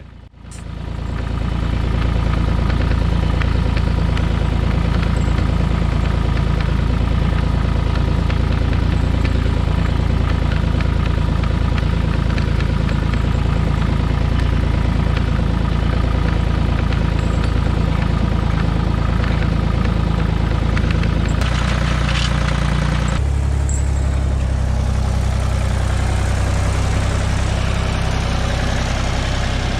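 Motor vehicle engine running steadily close by, with strong low notes; its note shifts about 21 seconds in and again a couple of seconds later.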